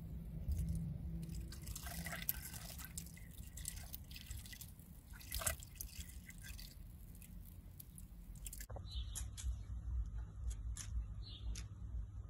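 Water trickling and dripping into a plastic pool skimmer as the rising pool water first spills over its lip in small streams, with irregular small splashes. About three-quarters of the way through it cuts to a steadier outdoor background with a few short high chirps.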